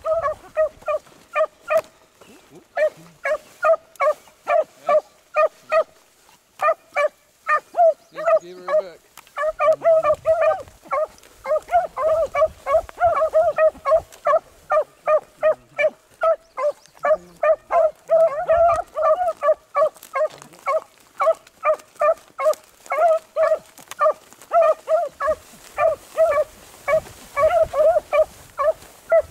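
Beagles baying on a rabbit's trail: a long run of short, repeated yelping barks, several a second, with brief pauses.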